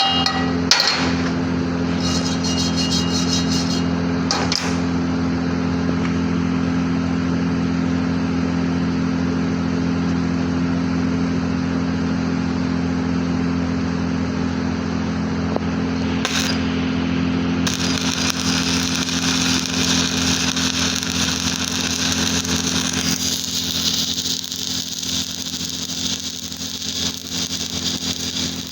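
Stick-welding machine humming steadily, with a few sharp clicks. From a little past halfway, a steady high hiss and crackle joins in, as of the welding arc burning.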